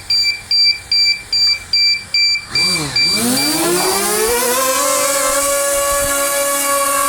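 Quadcopter drone starting a hand-held take-off: a run of short beeps about twice a second, then, about two and a half seconds in, its propeller motors spin up with a rising whine and settle into a steady buzzing hum.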